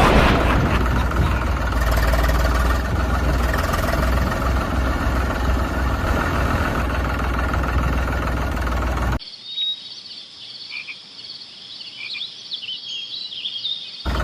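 A steady engine-like running sound with a low hum, like a small tractor motor, cuts off suddenly about nine seconds in. Quieter high chirping calls follow, and the running sound comes back at the very end.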